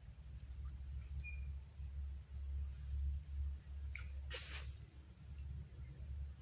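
Insects in the mangroves keeping up a steady, high-pitched drone over a low rumble. A brief swish comes about four and a half seconds in as the fishing rod is cast.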